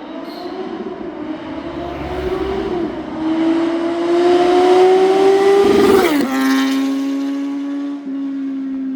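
Kawasaki Z900 inline-four with a full-system aftermarket exhaust accelerating hard, its note climbing with a brief dip about three seconds in, as at a gear shift. About six seconds in, at its loudest, the pitch drops sharply as the bike passes, then it holds a steady note.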